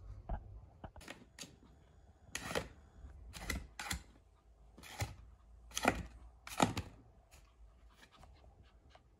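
A Pomeranian pawing at an empty cardboard kitchen-roll tube on a leather seat: about eight dry scrapes and taps, unevenly spaced, from cardboard and claws on the leather.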